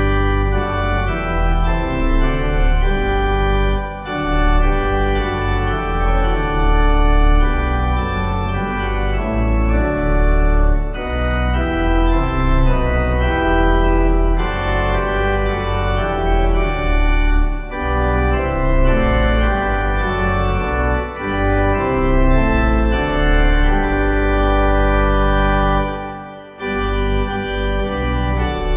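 Organ playing a hymn tune in held chords, the notes changing about once a second over a strong bass, with a brief break between phrases near the end.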